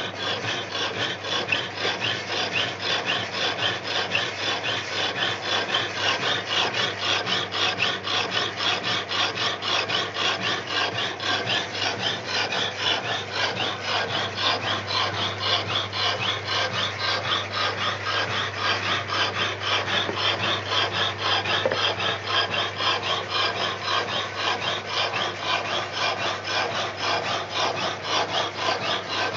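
Power hacksaw blade cutting through a hard tempered 3/8-inch steel bolt, in a steady, even rhythm of rasping strokes. The machine's belt-driven electric motor hums low underneath.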